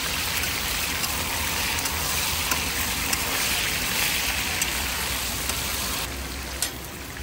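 Fresh meat sizzling in hot oil in a pan: a steady hiss with scattered small pops. The sizzle drops away about six seconds in.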